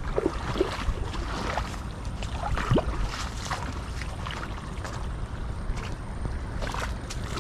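Wind rumbling on the microphone in the open, with scattered splashy footsteps along a wet, flooded path. A brief rising whistle-like sound comes just under three seconds in.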